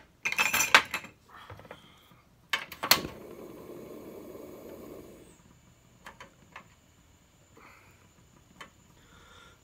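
Chopsticks and ceramic tableware knocking and clinking in a quick cluster, then a louder clack about three seconds in followed by a steady rushing hiss lasting about two seconds, then a few faint ticks.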